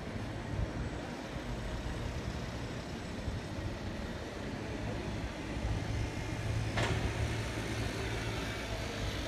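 Distant city traffic running steadily, with a low vehicle hum swelling a little past halfway and a single sharp click about three-quarters of the way through.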